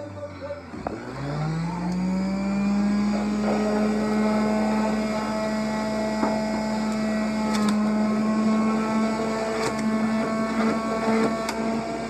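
Electric juicer motor switched on about a second in, winding up to speed over about a second and then running steadily with a whine, as basil leaves are pressed down the feed chute; a few sharp ticks near the end.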